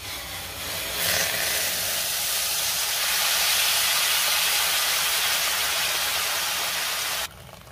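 Hot water poured into fried masala paste in a hot kadhai, hissing and sizzling loudly as it hits the hot oil and flashes to steam. The hiss starts about a second in, holds steady, and cuts off abruptly near the end.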